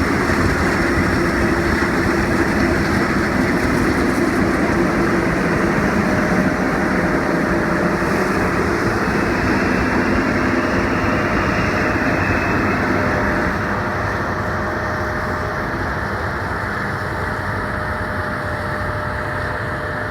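Combine harvester running steadily while cutting barley, with a faint steady whine over the machine noise. It gets a little quieter about two-thirds of the way through.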